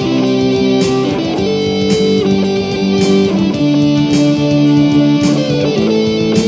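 Background music: an instrumental stretch between sung lines of a song, with held notes and a regular beat about once a second.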